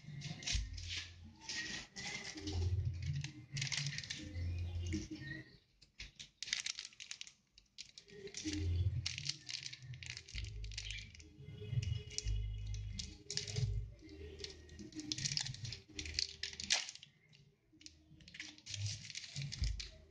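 Stone pestle grinding and knocking a spice paste in a stone mortar (Indonesian ulekan and cobek), in irregular gritty scraping bouts with short pauses.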